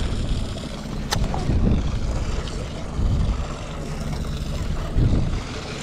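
Low rumbling boat and wind noise at sea, swelling and fading every second or so, with one sharp click about a second in.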